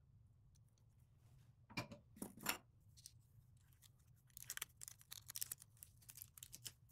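Faint handling sounds of a small printed circuit board: two short, sharp snips or clicks about two seconds in, then a run of light clicks and scratches as the board is turned in the fingers.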